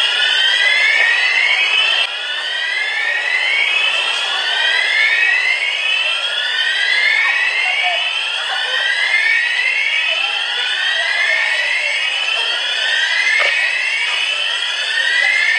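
Electronic alarm sounding continuously, a rising sweep repeated roughly once a second.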